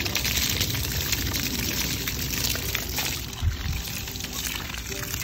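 Soapy water splashing and dripping from a wet wash sponge, a steady watery noise with a few faint small knocks.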